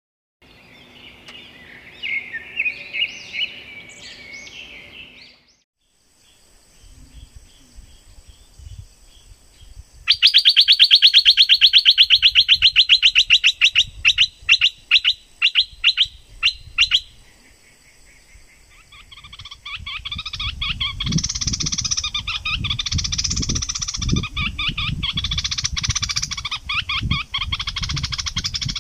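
Songbird calls. First comes a loud, fast trill of evenly repeated notes that spaces out and stops, then a busier run of chirping song over low thudding in the background.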